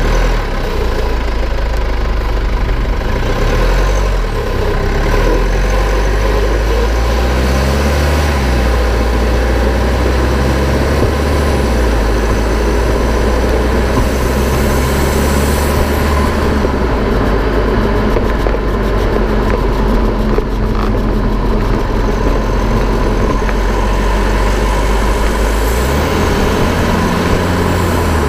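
Infiniti Q50 wheel running in its wheel well at driving speed: a steady, loud rumble of tyre and road noise with a faint steady hum above it, the wheel noise in question.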